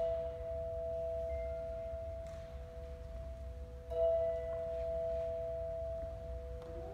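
Massed children's choir singing sustained notes, two pitches held together as a clean chord, with a fresh, louder entry about four seconds in.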